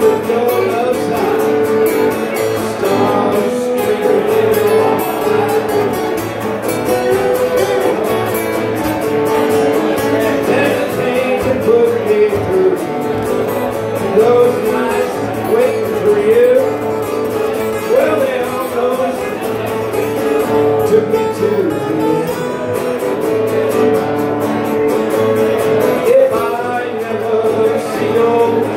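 Live country-style song: a man singing through a PA to his own strummed acoustic guitar.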